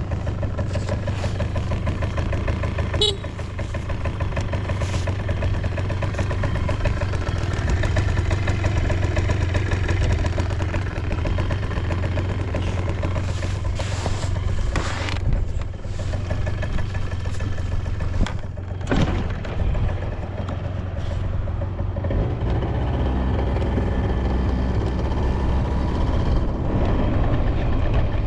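Suzuki Let's II scooter's carbureted 50cc two-stroke engine idling steadily, with no abnormal noise. A few brief clicks are heard along the way.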